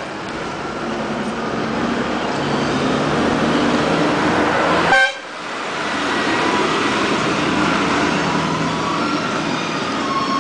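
Street traffic noise with vehicles running, and a short, loud vehicle horn toot about halfway through.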